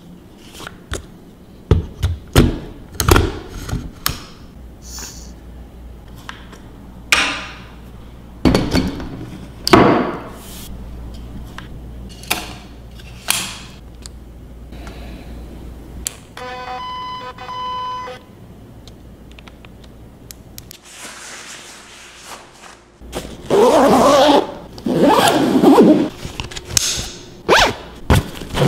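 Handling sounds of a Nikon D3S camera and lens: a run of sharp clicks, knocks and thunks, then a short run of electronic beeps. Near the end come two long, loud rasps as a camera backpack is handled.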